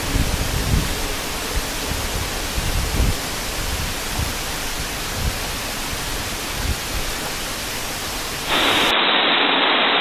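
Waterfall rushing, a steady even hiss, with an irregular low rumble over the first few seconds. Shortly before the end it cuts abruptly to a louder, duller hiss.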